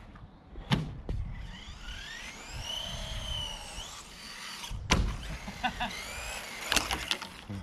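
Electric motor of a radio-controlled car whining as the throttle is worked, its pitch sweeping up and down, with a few sharp knocks, the loudest about five seconds in.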